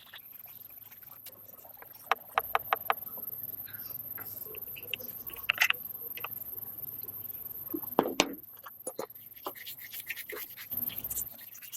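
Sharp clicks and knocks with some scraping: a quick run of about five clicks about two seconds in, then scattered taps and a louder knock with scraping about eight seconds in.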